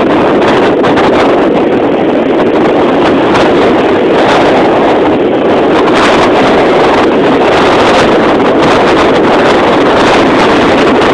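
Wind buffeting the microphone, loud and steady, over small ocean waves breaking and washing up the sand.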